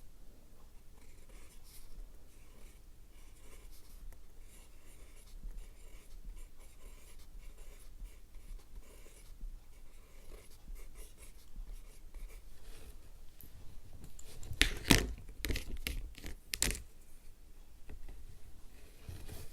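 Sakura SumoGrip mechanical pencil lead scratching steadily across paper as it writes, with a few louder knocks about 15 and 17 seconds in.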